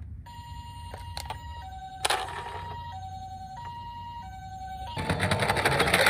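Toy emergency vehicle's electronic two-tone siren alternating between a high and a low note, with a sharp click about two seconds in. A loud rattling noise comes in near the end.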